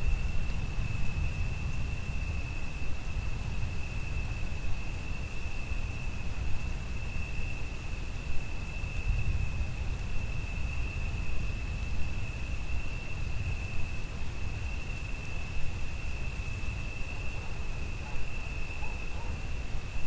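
Crickets trilling continuously at one steady high pitch, over a low rumble of rain and distant thunder.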